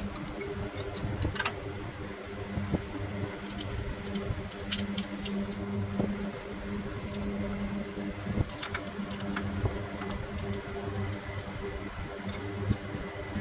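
A steady machine hum with light clicks and taps scattered through it.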